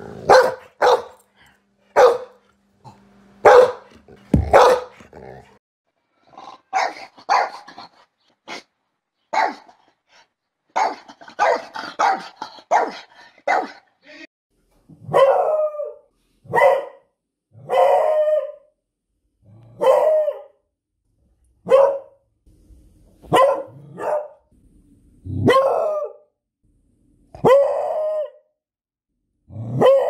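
Dogs barking in a string of separate barks. The first half holds short, sharp barks of a golden retriever. From about halfway a beagle takes over with longer baying barks, about one every second and a half, each dropping in pitch at the end.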